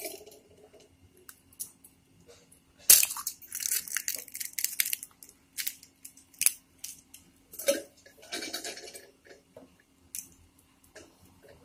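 An egg being cracked on the rim of a steel tumbler: a sharp knock about three seconds in, then the shell being broken open and pulled apart. A few lighter knocks and more shell noise follow later.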